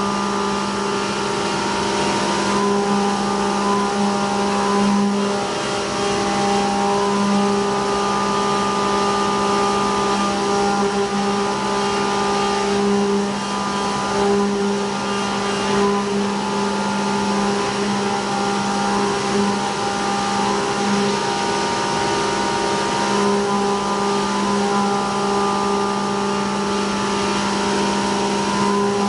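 CNC milling machine cutting a pocket with an end mill on a traditional racetrack toolpath. A steady, loud pitched tone from the spindle and cutter sits over an even hiss from the chip and coolant spray.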